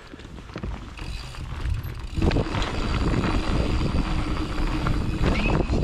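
Mountain bike running over a dirt trail: tyre rumble with clicks, rattles and creaks from the bike, and wind on the microphone, louder from about two seconds in.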